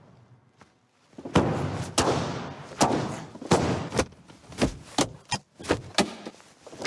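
Volkswagen Passat car doors slammed shut again and again: about ten heavy thuds, the first about a second and a half in, coming quicker toward the end.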